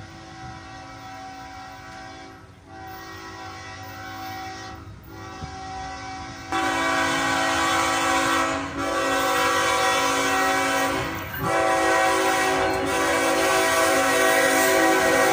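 Air horn of an approaching GE ES44AC diesel locomotive sounding a chord in a series of long blasts with brief gaps. It becomes markedly louder about six and a half seconds in as the locomotive draws nearer.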